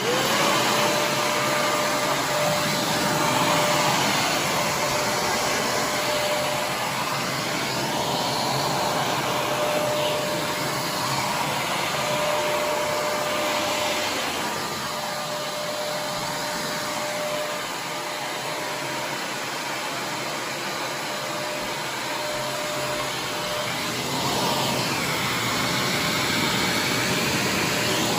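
Vacuum cleaner switching on, its motor spinning up to a steady whine, then running continuously, the pitch of the airflow wavering now and then.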